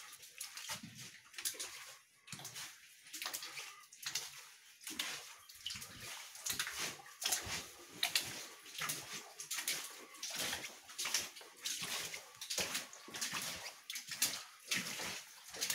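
Footsteps wading and splashing through shallow water on a mine tunnel floor: a run of irregular splashes and sloshes at walking pace.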